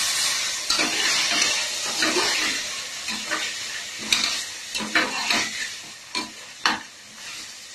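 Green peas sizzling as they fry in hot oil in an aluminium pressure cooker, stirred with a metal spatula. The sizzle is loudest at first and slowly dies down, and in the second half the spatula scrapes and knocks against the pot several times.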